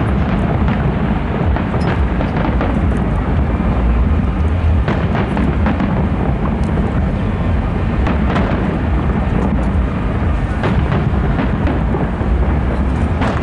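Aerial fireworks going off: a continuous low rumble of booms with sharp cracks every second or two.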